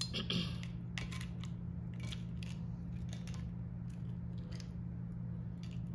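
Close-miked eating sounds: a short clatter about half a second in, then scattered soft clicks of chewing and lip smacks. A steady low electrical hum runs underneath.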